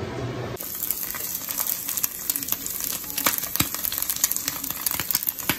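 Egg frying in a nonstick pan, sizzling steadily with frequent sharp crackling pops, starting about half a second in.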